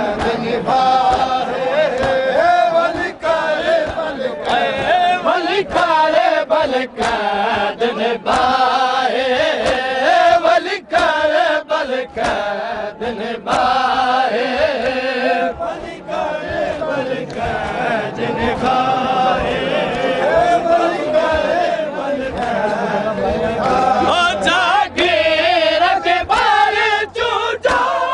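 A group of men chanting a nauha (mourning lament) together, with repeated sharp slaps of hands beating on bare chests (matam).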